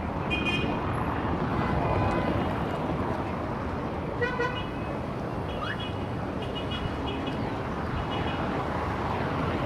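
Heavy city traffic, a steady rumble of engines and tyres, with car horns honking in short toots every second or two. The loudest honk comes about four seconds in.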